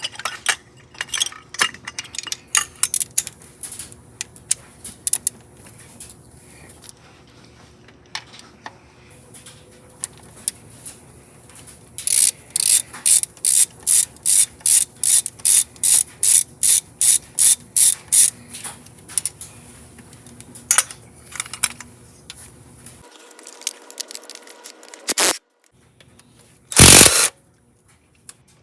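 Hand socket ratchet clicking as it turns oil pan bolts: scattered clicks at first, then a steady run of about three clicks a second in the middle. Near the end comes a short, loud burst of hiss.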